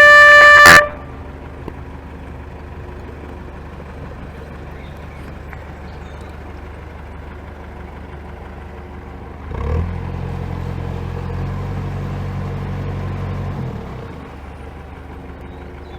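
Narrowboat horn sounding a long blast that cuts off just under a second in, followed by the boat's diesel engine running steadily. The engine gets louder for about four seconds near the middle, then drops back to its earlier level.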